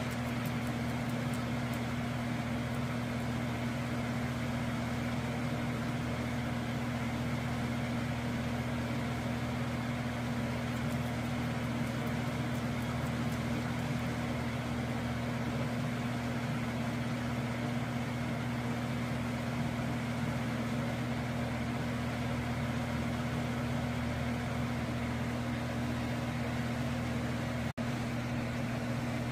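A steady, low, machine-like hum at a constant pitch, cutting out for a split second near the end.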